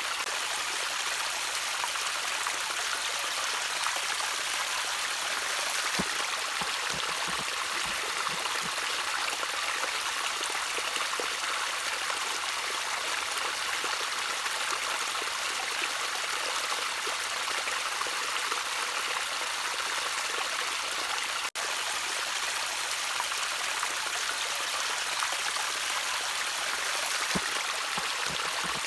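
Gentle trickling water running steadily, with a few low gurgles and a momentary break about two-thirds of the way through.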